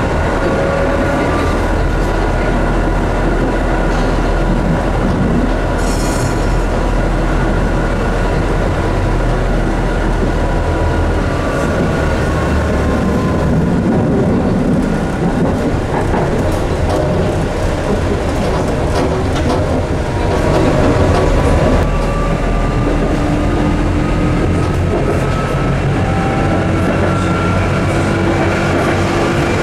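Tatra T6A5 tram heard from inside while running between stops: a steady rumble of wheels on rails, with an electric motor whine that slowly rises and falls as the tram speeds up and slows. A brief high-pitched squeal comes about six seconds in.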